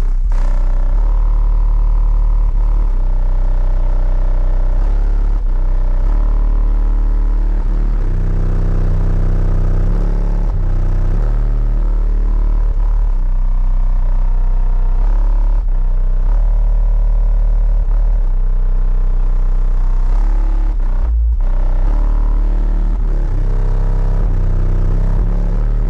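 Bass-heavy music played loud through a car stereo with four 15-inch Sundown and Rockford Fosgate subwoofers in the trunk, deep sustained bass notes dominating. There is a brief break in the track about three-quarters of the way through.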